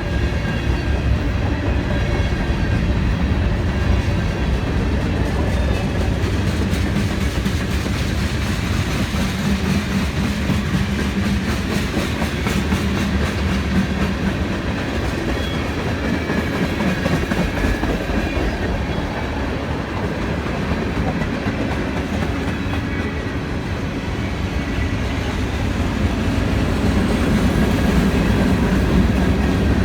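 CSX freight train rolling past: a steady rumble of steel wheels on rail from the passing freight cars, a little louder near the end.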